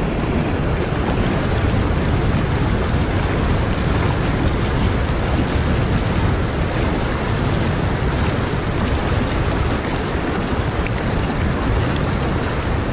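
Water rushing steadily over a concrete lake spillway, an even roar of running water.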